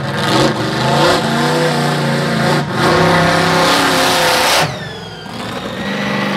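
Monster truck's engine roaring and revving hard as it is warmed up and driven on dirt. About four and a half seconds in the throttle drops off suddenly with a falling whine, and the engine settles to a lower, steady note.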